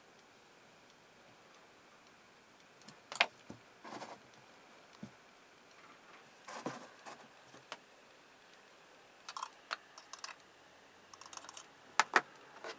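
Small metal engine parts clicking and tapping as they are handled and fitted together by hand, in scattered light clicks with quiet between; the loudest comes about three seconds in and twice more near the end.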